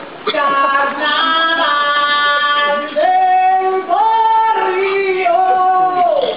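A group of singers holding long notes in harmony, moving to a new chord about every second, then sliding down together and cutting off near the end.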